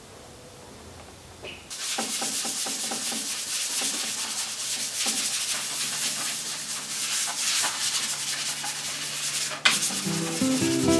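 Sandpaper rubbing by hand over a carved mango-wood bowl: quick back-and-forth sanding strokes, starting about two seconds in. A sharp click near the end, then acoustic guitar music coming in.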